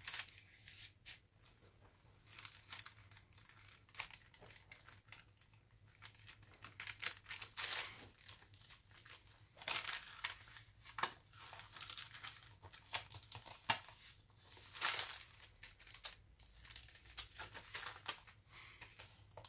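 Paper rustling and crinkling as hands slide cards out of a paper envelope pocket and turn the pages of a thick handmade junk journal: a run of short, irregular brushes and scrapes, with louder rustles in the middle.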